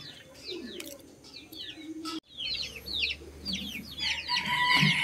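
Birds chirping, many quick falling chirps, with a brief drop-out about two seconds in; the chirping grows busier after it, and a held call comes in near the end.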